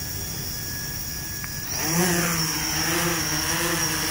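Yuneec Typhoon H hexacopter's six electric motors and propellers start spinning up about two seconds in. They settle into a steady buzzing hum whose pitch wavers slightly.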